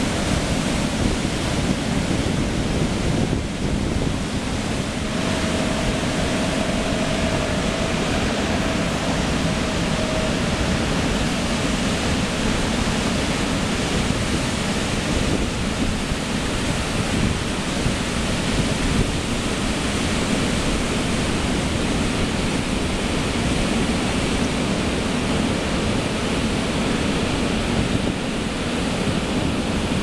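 Big ocean surf breaking continuously at high tide, an even, unbroken wash of noise, with wind buffeting the microphone in the low end.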